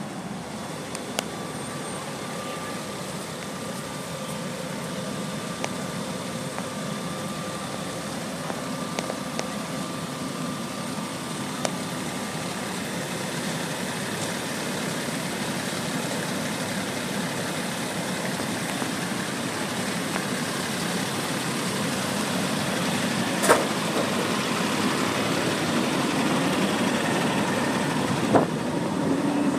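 Steady rumble of idling truck engines, most likely the fire engines at the scene, growing gradually louder, with a thin steady whine through the first half. A few sharp clicks stand out, the loudest about 23 seconds in.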